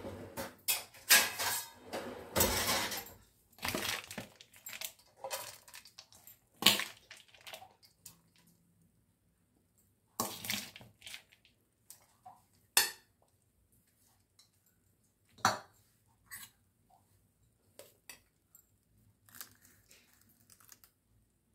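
Steel spoon stirring and scraping puffed rice bhelpuri mix in a stainless steel bowl, with the rustle of the dry puffed rice. The clatter is busy for the first few seconds, then thins to scattered single clinks and taps of spoon and steel plate.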